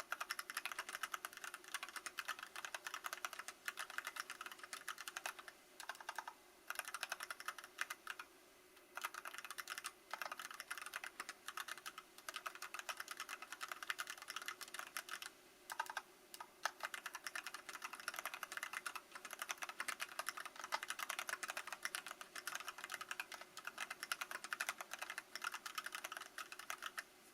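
Archon FX mechanical keyboard with linear Kailh Box Black switches on an aluminium plate, in stock unmodified form, being typed on fast and continuously, with a few short pauses.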